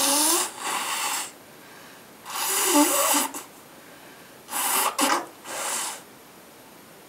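A person blowing their nose hard into a handkerchief: a run of about five noisy blasts of breath, each half a second to a second long, some coming in quick pairs with short pauses between.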